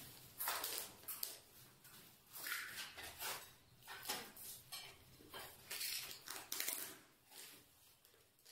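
Gloved hands scuffing and pressing on a freshly laid large floor tile, in short irregular rubs, with light ticks as plastic tile-leveling clips are set down.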